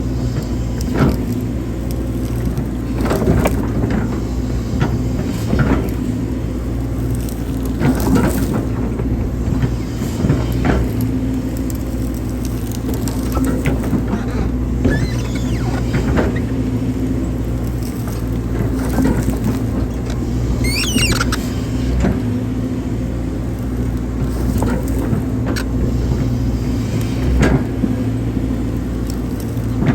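Hydraulic excavator's diesel engine running steadily under load while digging, with repeated clunks and knocks from the bucket and arm at work.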